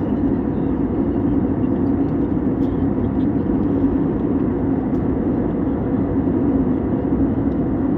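Steady, unchanging roar of a vehicle in motion, with no rises, falls or separate events.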